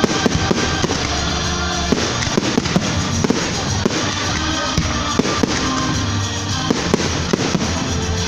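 Fireworks display: shells bursting and crackling overhead, several sharp bangs a second at uneven intervals, over continuous music.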